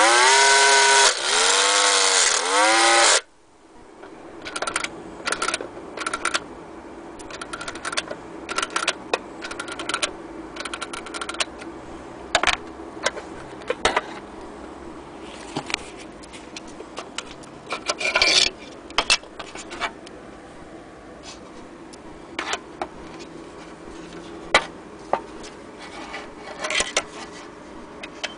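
Clockwork motor of a 1930s Hornby Meccano Racer III tinplate speedboat running with the boat out of the water, a loud whir that rises and falls in pitch in quick repeats and stops abruptly about three seconds in. After it, the tinplate hull is handled, with scattered clicks and taps over quiet rubbing.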